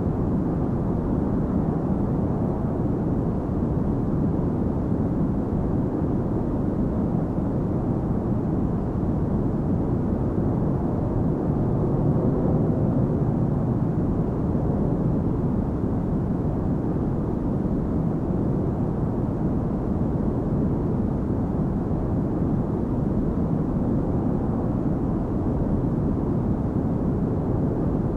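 Airliner cabin noise in flight, heard from inside the cabin: a steady, even rumble of engines and rushing air, with no change.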